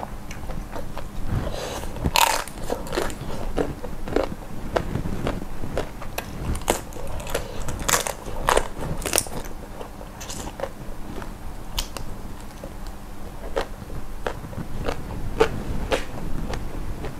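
Close-miked eating sounds: chewing with irregular crunches and sharp clicks.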